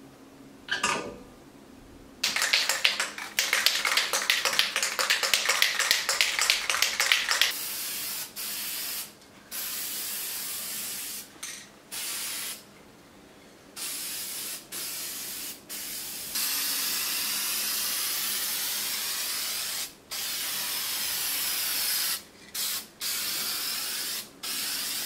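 Aerosol spray-paint can shaken hard, its mixing ball rattling rapidly for about five seconds. It is then sprayed in a string of short bursts, with one longer spray of about four seconds in the middle.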